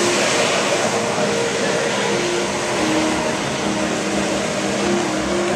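Jet ski engine running hard to pump water up the hose of a Flyboard, with the steady hiss of the Flyboard's water jets spraying. The engine's pitch steps up and down a little as the throttle changes.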